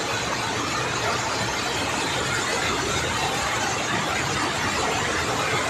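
Muddy floodwater rushing and pouring down like a waterfall, a steady, even rush of water noise.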